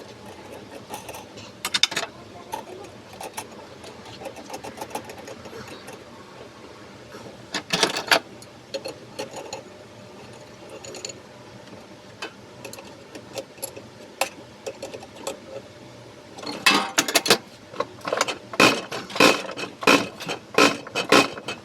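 Small metal parts and hand tools clicking and clinking. In the last five seconds comes a run of sharp, loud knocks, about two a second.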